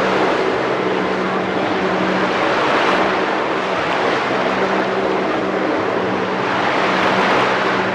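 Jet ski engine running hard with a steady drone, over the rushing hiss of water spray as the craft carves tight turns.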